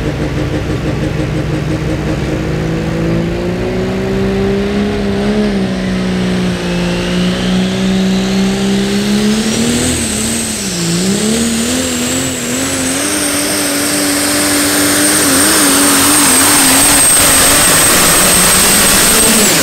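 Super stock diesel pulling truck's engine running hard under load, its note wavering and dipping briefly about halfway through. A turbocharger whine rises steadily in pitch over the first dozen seconds, then holds at a high, steady scream that grows louder. The sound cuts off abruptly near the end.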